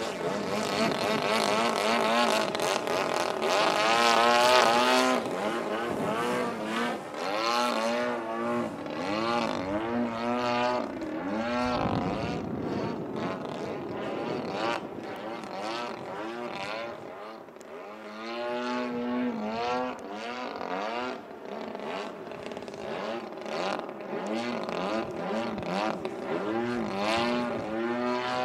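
DLE 30 single-cylinder two-stroke gas engine and propeller of a 72-inch RC Extra 330SC aerobatic plane flying overhead. Its pitch rises and falls again and again as it is throttled through manoeuvres and passes, and it is loudest about four seconds in.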